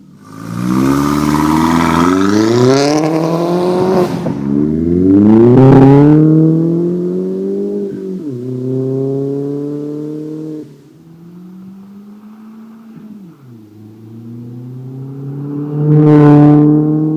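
Volkswagen Jetta 1.8T turbocharged four-cylinder through a 3-inch turbo-back exhaust and Dynomax Ultra Flo stainless muffler, revved three times. Each time the pitch climbs, then falls back to idle. There is a loud hiss over the first rev and short hisses near the peaks of the later ones.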